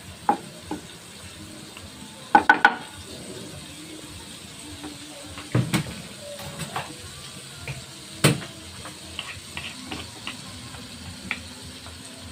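Margarine sizzling as it melts in a nonstick pan while a wooden spatula stirs it, knocking and scraping against the pan now and then. The loudest sound is a quick run of three knocks about two and a half seconds in.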